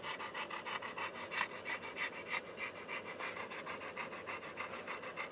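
Golden retriever panting softly in a fast, even rhythm of short breaths.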